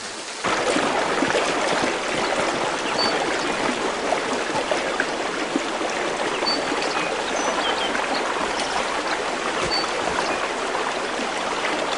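Heavy rain falling, a steady hiss that starts abruptly about half a second in, with a few faint high peeps over it.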